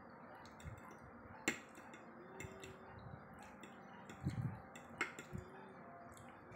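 Metal fork clinking against a plate while twirling spaghetti: two sharp clinks about three and a half seconds apart. Soft chewing and mouth sounds between them.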